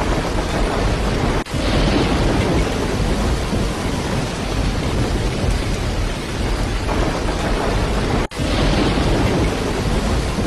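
Heavy rain pouring down steadily, a dense hiss with a deep low rumble under it, briefly cutting out twice.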